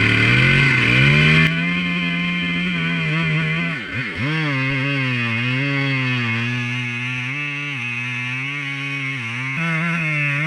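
Husqvarna chainsaw on an Alaskan chainsaw mill running under load as it saws a thin veneer off a log. The engine speed rises at the start, wavers through the cut and dips sharply about four seconds in as the chain bogs in the wood.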